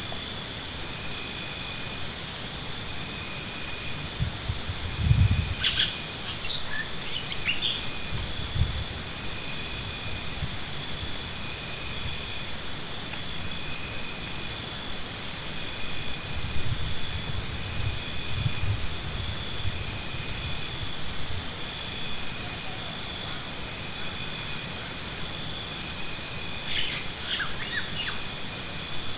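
Insects calling in repeated pulsing trills, each burst lasting a couple of seconds, over a steady high-pitched drone. A couple of low thumps come about five and nine seconds in.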